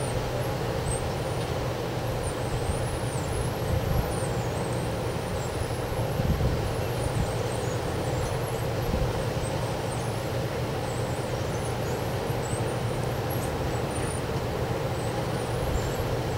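Wind blowing steadily through the night, a continuous rushing noise with a low rumble that swells a little in gusts.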